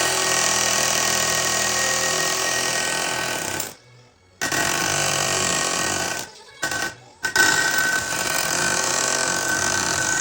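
Hammering power tool running in long, steady bursts on a stuck JCB Robot boom pin to drive it out. It stops for about half a second about four seconds in and cuts out twice more, briefly, between six and seven seconds in.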